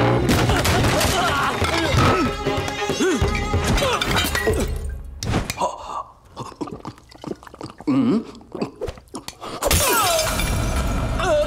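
Dramatic film background score over fight sound effects, with crashes and something shattering in the first half. About halfway the music thins out to scattered knocks and clicks, then comes back in loudly near the end.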